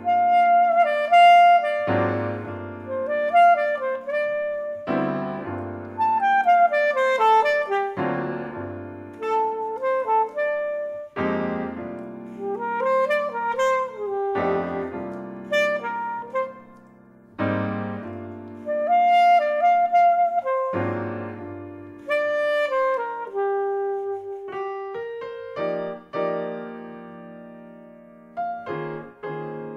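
Alto saxophone and piano playing a jazz chamber piece. The piano strikes a chord with a low bass note about every three seconds while the saxophone plays a winding melody over it, and the music grows quieter near the end.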